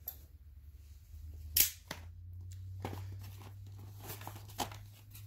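A cardboard retail package being handled and pried open: a few sharp clicks and snaps, the loudest about a second and a half in, over a steady low hum.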